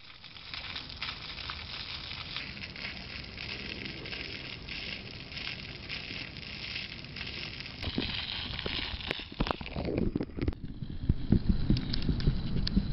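Pond fountain water splashing, a steady crackling hiss. About ten seconds in the sound turns muffled and low, with knocks and clicks, as the microphone goes under the water.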